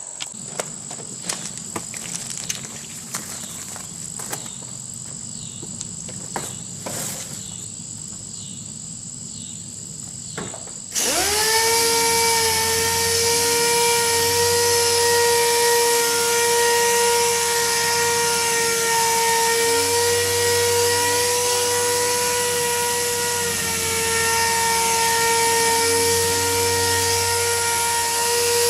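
Scattered light clicks over a steady high thin tone, then about eleven seconds in a pneumatic (air-powered) orbital sander starts abruptly and runs steadily at speed, a constant pitched whine with air hiss, wet sanding automotive clear coat with a 5,000-grit disc.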